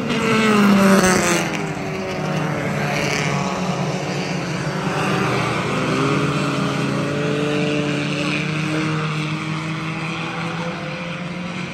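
Hobby stock race cars running laps. One car passes close by about a second in, the loudest moment, its engine note falling as it goes past. After that, several cars' engines are heard together around the track.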